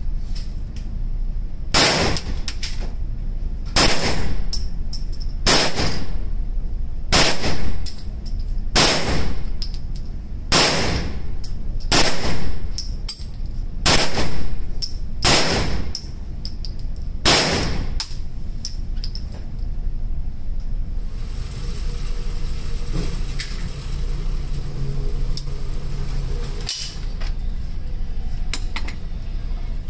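Ten unsuppressed 9mm shots from a Grand Power Stribog SP9 A3, fired one at a time about one and a half to two seconds apart, each round cycling without a failure to extract or eject. After the string comes a steady whir of a few seconds, the range's target carrier bringing the target back.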